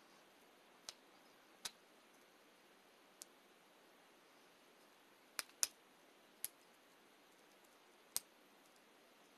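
About seven small, sharp clicks, scattered and two in quick succession in the middle, as a glass face-mist spray bottle is handled, with near silence between them.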